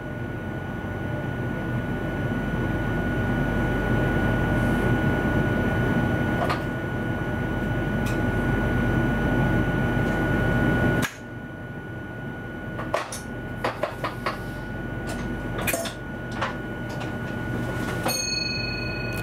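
Inside an electric train's driver's cab: a steady hum with a constant whine, which drops away suddenly partway through, followed by a series of sharp clicks and knocks and, near the end, a steady beep.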